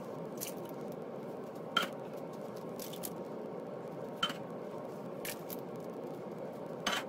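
Thick canned crushed tomatoes sliding and plopping out of tipped tin cans into a slow cooker's ceramic crock, over a steady hiss. There are three short sharp clinks, about one every two and a half seconds, from a tin can knocking against the crock.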